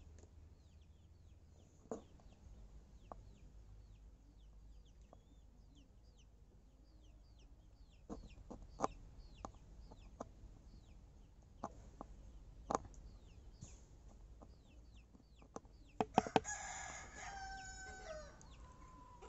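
A rooster crows once near the end, a call of about two seconds with several stacked tones, over faint, frequent chirping of small birds. A few sharp clicks, the loudest of them just before the crow.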